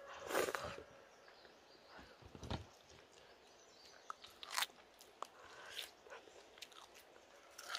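Someone eating: scattered small crunches, bites and clicks, the loudest about half a second in.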